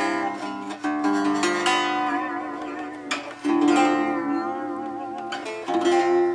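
Chords played on a Heit Deluxe Teisco-style archtop guitar tuned down a whole step, with high action. There are about four chords, each left to ring and fade.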